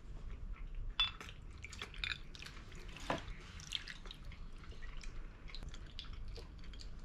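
Shaoxing rice wine poured from a bottle into a glass of ice: liquid trickling and dripping, with scattered small clicks.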